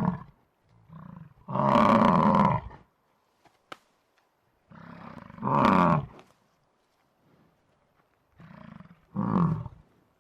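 Three loud calls from a large animal, about four seconds apart, each beginning quieter and swelling into a louder call about a second long.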